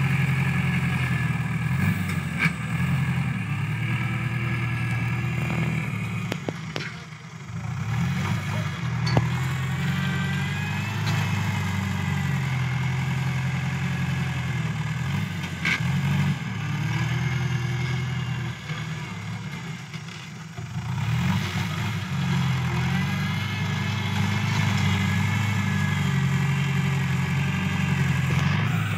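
New Holland TS90 tractor's diesel engine working under load as it pushes and levels soil, its note rising and falling with the load and easing off briefly twice. A few sharp knocks come through as it works.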